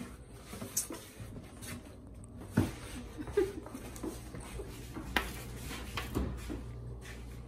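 Quiet handling sounds as a disposable foil roasting pan is carried across the kitchen: a few sharp knocks and light rustles, the loudest about two and a half seconds in, over a low steady hum.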